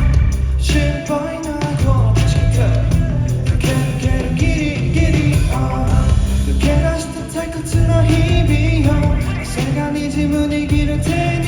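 A pop song played loud over a concert sound system during a sound check, with a male vocal over a band backing with heavy bass and drums.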